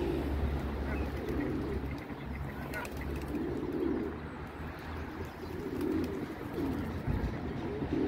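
Feral pigeons cooing: soft, low coos repeating every second or so, over a steady low hum.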